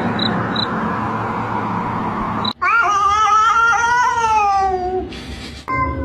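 A cat gives one long, drawn-out yowl about halfway through, lasting a couple of seconds, its pitch rising slightly and then falling away. Before it comes a stretch of steady rough noise.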